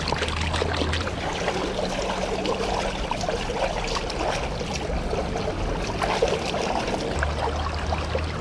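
Shallow stream running and trickling over stones, with the splashing of hands and a stainless steel bowl in the water as raw chicken is rinsed.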